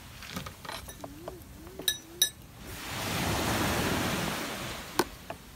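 Small waves washing on the shore nearby, a surge swelling up and ebbing away in the second half, with two sharp, ringing clinks of metal tableware about two seconds in.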